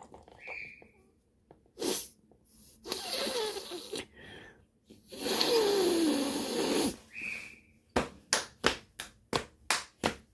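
A child's breathy vocal noises: two long hissing exhales, each with a falling groan in it, then a quick run of about eight sharp taps, about four a second, near the end.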